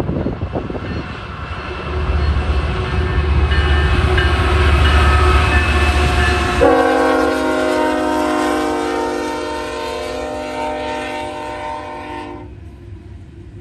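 BNSF diesel freight locomotive's engine rumbling louder as it approaches and passes close by. About six and a half seconds in, its air horn sounds one long blast of several notes at once, lasting about six seconds and cutting off about a second before the end, as the train rolls on past.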